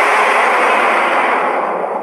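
King Kong–style monster sound effect: a loud, harsh, noisy blast that starts suddenly, holds, then slowly fades away.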